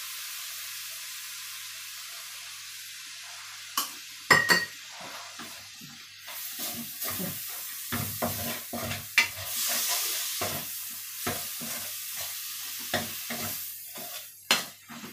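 Wooden spatula stirring minced chicken chilli paste frying in a metal wok. A steady sizzle at first, then about four seconds in two sharp knocks of the spatula on the pan, followed by repeated irregular scrapes and knocks of stirring over the sizzle.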